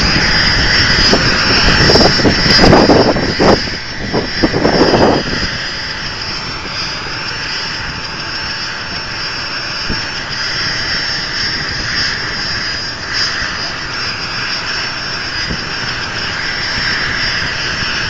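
Helicopter's turbine engine running with a steady high whine and rotor noise. It is louder and gusty for the first five seconds, then settles to an even run.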